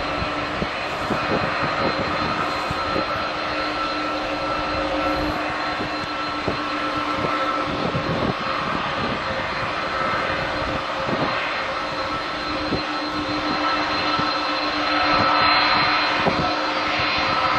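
Airbus A320's twin CFM56-5B turbofans at takeoff thrust, heard from behind as the airliner accelerates down the runway: a continuous rumbling, crackling jet noise with a few steady whining tones, growing a little louder near the end.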